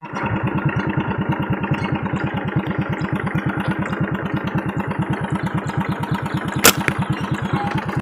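An engine running steadily with a fast, even thumping of about ten beats a second, and one sharp click about two-thirds of the way through.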